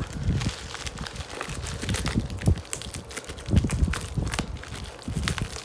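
Handling noise of a VHS videotape and its case being picked up and turned over: irregular clicks, knocks and low bumps of plastic being handled close to the microphone.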